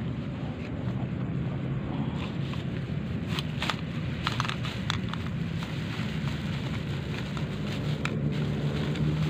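A steady low motor hum, with a few light clicks and knocks between about three and four seconds in.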